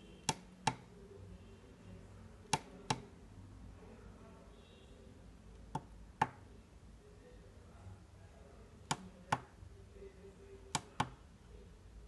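Tactile push-button switches on a 4x4 matrix keypad clicking as single keys are pressed and released: five pairs of sharp clicks, the press and the release a fraction of a second apart.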